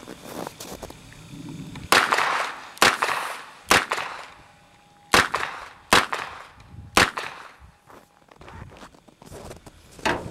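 Revolver being fired, six shots a second or so apart, each a sharp crack with a short echo, then a lighter sharp report near the end.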